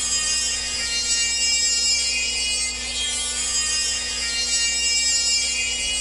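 Music played through a single car-audio tweeter, driven at about 70% volume. The sound is almost all treble, with next to no bass.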